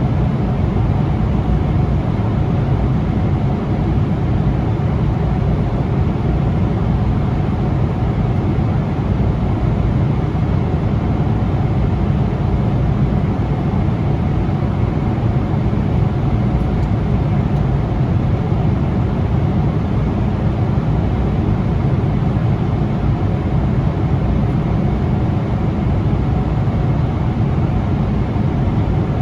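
Steady rumble and rush of a Boeing 777-300ER's engines and airflow, heard from inside the passenger cabin, even and unchanging throughout.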